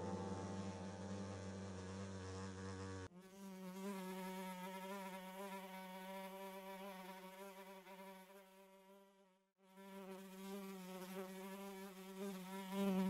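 A fly buzzing in a steady drone with a wavering pitch. It changes abruptly about three seconds in and drops out briefly about two-thirds of the way through.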